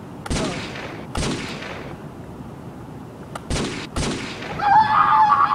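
Four gunshots: two about a second apart, then two more in quick succession about three and a half seconds in, each a sharp bang with a short fading tail. A wavering high-pitched tone starts near the end.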